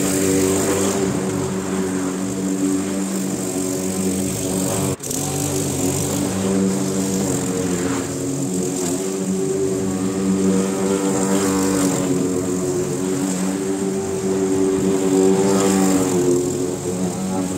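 Petrol walk-behind rotary lawn mower running steadily while cutting grass. There is a brief break in the sound about five seconds in.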